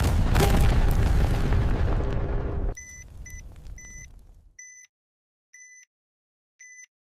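Sound-effect explosion: a loud blast that stays loud for nearly three seconds, then drops suddenly into a fading tail. Short electronic bomb-timer beeps then start up again, about one a second.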